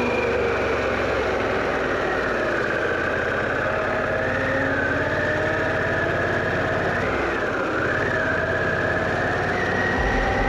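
Harley-Davidson Pan America's V-twin engine running under load as the motorcycle climbs in gear, its pitch holding fairly steady with a couple of small dips and rises.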